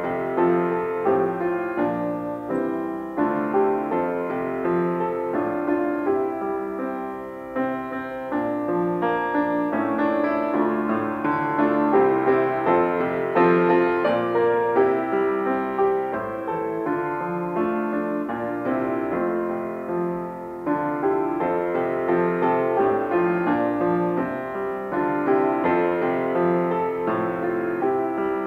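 Solo piano music played on a Baldwin grand piano, a continuous flow of held chords and melody notes.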